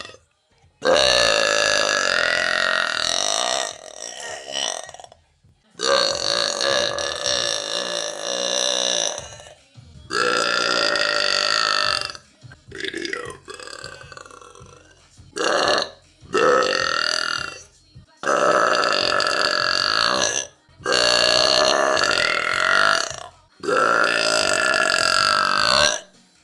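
A woman belching loudly again and again, with about eight long, drawn-out belches of two to three seconds each and a few short ones between, separated by brief pauses.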